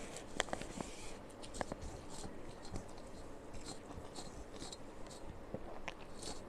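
Someone eating rice and vegetable curry: soft chewing with scattered, irregular small clicks and scrapes.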